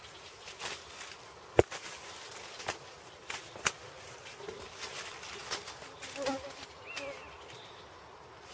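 An insect, most likely a honeybee, buzzing past near the bait hive, over scattered sharp clicks and knocks, the loudest about a second and a half in.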